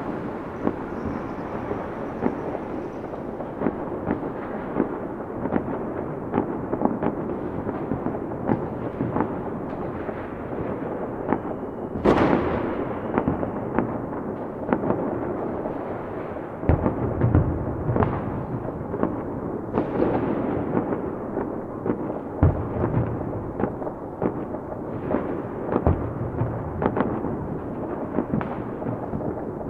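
Fireworks going off in a continuous barrage: many crackles and pops over a steady rumble, with a few louder booms standing out, the loudest about twelve seconds in.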